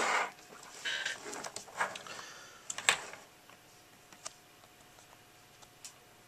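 Power-supply cable bundle rustling and its plastic connectors clicking as the wires are handled, with a sharp click about three seconds in; after that only a few faint ticks.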